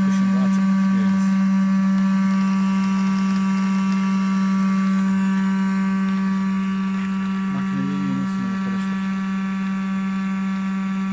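Electric cream separator running while it separates milk, making a loud, steady motor hum that does not change in pitch.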